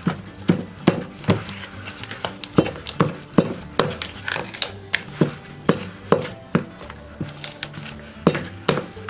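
A spoon knocking and scraping against a plastic mixing bowl as a soft flour dough is stirred, over background music with a steady beat.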